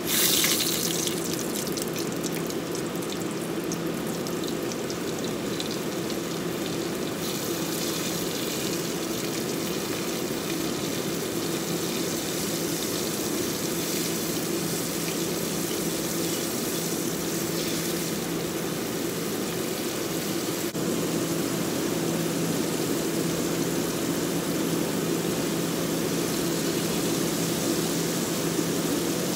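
Floured chicken pieces deep-frying in hot vegetable oil in a pot: a sharp burst of sizzle as a piece goes into the oil at the start, then a steady, even sizzling and bubbling.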